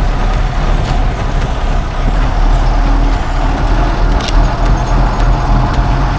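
Large vehicle's engine running close by, a steady low rumble, with a single sharp click a little after four seconds in.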